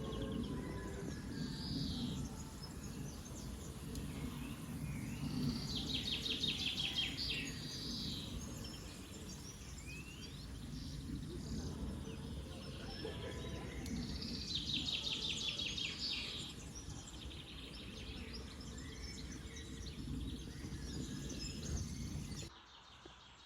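A songbird singing rapid trilled phrases, three loud ones about eight seconds apart, with fainter bird calls between, over a steady low outdoor rumble.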